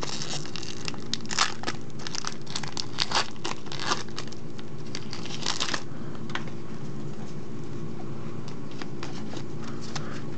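Foil Pokémon TCG booster pack crinkling and tearing open for about six seconds, then only faint scattered clicks of the cards being handled. A steady low hum runs underneath.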